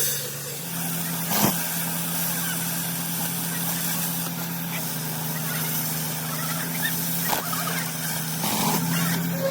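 A machine or engine running steadily with a low hum, with a sharp knock about a second and a half in and another a little after seven seconds.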